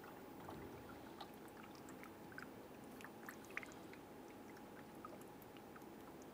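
Coolant poured from a plastic jug through a funnel into a radiator filler neck, heard faintly as scattered small splashes and clicks of liquid over a low steady hum.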